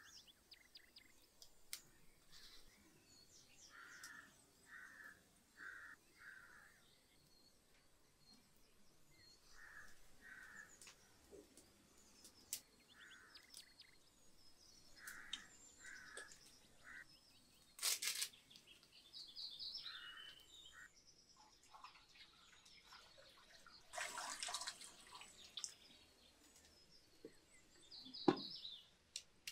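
Faint birdsong over quiet room tone: a small bird repeats short chirps, often in pairs, with a few higher twitters. Two brief, louder rustling noises break in partway through.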